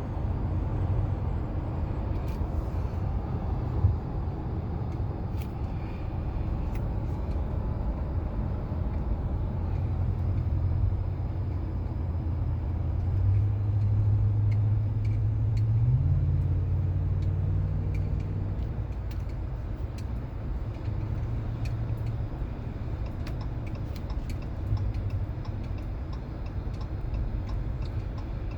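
Wind and road noise inside the cab of a 2019 Ram 1500 Longhorn pickup while driving: a steady low rumble with a haze of rushing air. A low drone underneath steps up in pitch about halfway through, and a few faint clicks are scattered through it.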